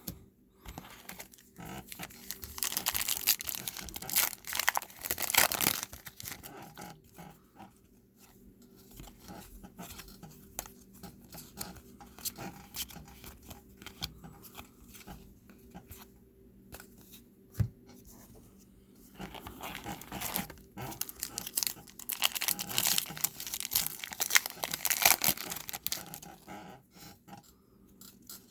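Trading card pack wrappers crinkling and tearing, with cards being handled, in two louder spells: a few seconds in and again about two-thirds of the way through.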